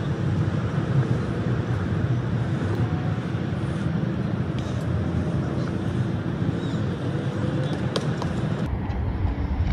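Steady low outdoor background noise with no distinct events; its character shifts abruptly near the end.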